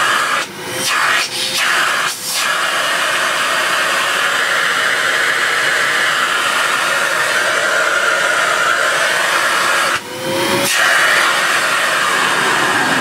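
Sebo Airbelt C3 Power cylinder vacuum cleaner running, a steady rush of air that is louder than the motor. The sound dips briefly about ten seconds in and then picks up again.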